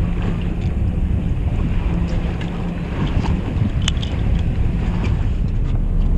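Fishing boat's engine running with wind buffeting the microphone, and a few small clicks over it; the sharpest click, about four seconds in, comes from a hand tally counter.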